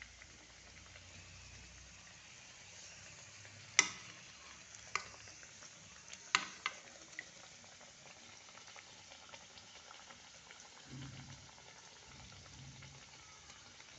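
A large momo deep-frying in oil on a low flame: a faint, steady sizzle. A few sharp clicks come between about four and seven seconds in.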